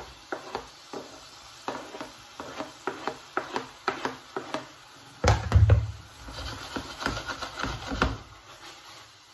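Diced onions being scraped off a plastic cutting board into a hot frying pan: a run of quick taps and scrapes, then a heavier thump and clatter about five seconds in. A soft sizzle follows as the onions start to fry.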